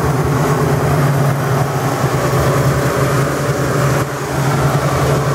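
Ford 429 V8 engine of a 1969 Mustang idling steadily, heard close up through the open engine bay, with no revving.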